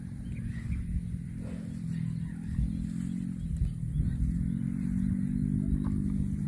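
An engine running steadily, its level climbing a little about halfway through, with a low rumble underneath.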